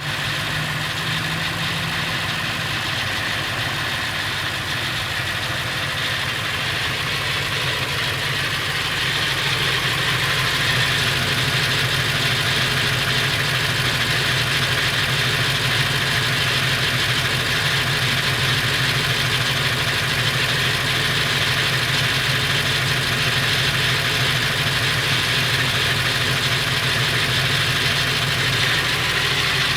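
Ford 7.3L Powerstroke V8 turbodiesel idling with a steady rattle, which the owner suspects may be the flexplate or something in the engine. The sound grows louder about a third of the way in.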